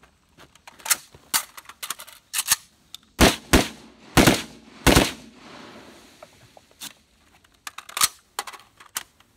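AK-pattern rifle firing four loud shots about half a second to a second apart, near the middle, with fainter sharp cracks before and after.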